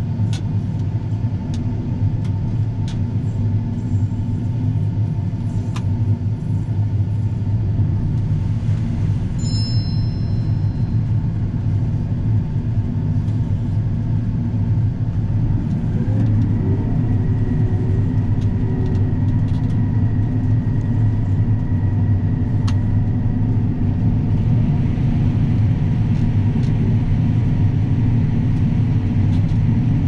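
John Deere S790 combine running, heard from inside its cab: a steady low engine and machinery drone. A short high electronic tone sounds about ten seconds in. About halfway through, a whine rises and then holds steady as the corn head moves into the standing corn.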